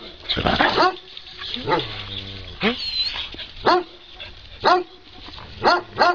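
Dog barking repeatedly, about one bark a second, with a quick run of barks at the start and two in quick succession near the end.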